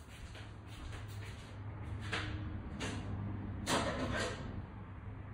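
Workshop handling noise: four short scraping knocks about two, three, three and a half and four seconds in, the third the loudest, over a steady low hum.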